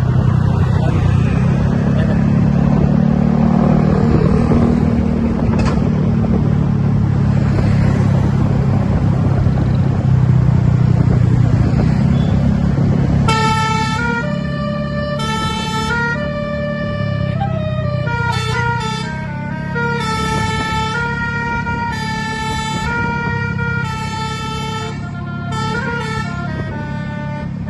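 Bus engine running with a steady low rumble; about halfway in, a basuri telolet horn starts playing a melody in short stepped notes, several horn tones sounding together, over the engine.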